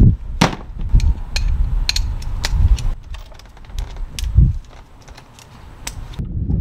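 Metal hand tools clicking and clinking: a socket wrench on a long stack of extensions being worked down onto a hard-to-reach exhaust bolt. Irregular sharp clicks, about one or two a second, with a few dull low thumps.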